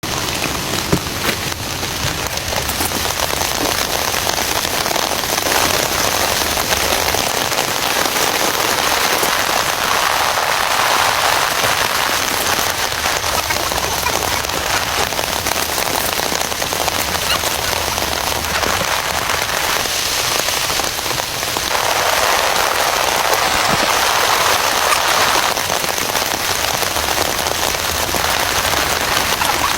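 Heavy rain falling steadily, a dense hiss of drops that swells louder for a few seconds twice.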